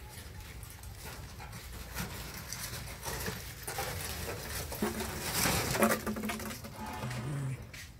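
Puppies and dogs snuffling and panting as they move about, with two short low vocal sounds from a dog, one about five seconds in and one about seven seconds in.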